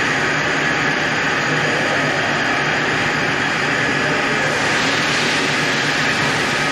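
Manual engine lathe running, its spindle spinning an aluminum bar while the cutting tool turns down the diameter: a loud, steady whir and hiss of machine and cut. The higher hiss eases slightly about two-thirds of the way through.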